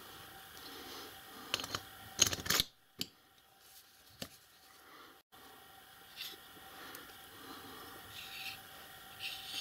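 Small steel four-way lathe tool post being handled: a quick cluster of light metal clicks and knocks about two seconds in, then a few scattered soft clicks and rubbing.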